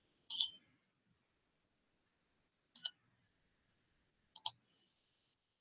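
Computer mouse clicking: three quick double clicks spread over a few seconds, sharp and short, with silence between them.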